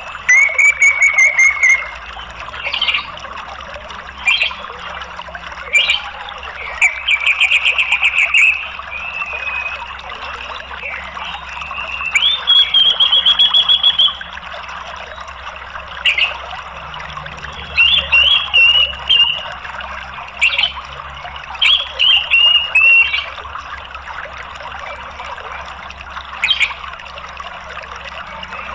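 Orange-headed thrush giving short bursts of rapid trilled chattering and buzzy calls every few seconds, with a longer trilled phrase about halfway through. Under the calls runs a steady sound of flowing water.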